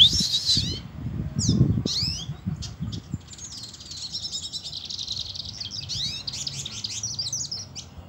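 A small caged songbird singing. Scattered chirps and quick whistled glides come first, then a long, rapid twittering song from about halfway in. There is a sharp loud knock right at the start.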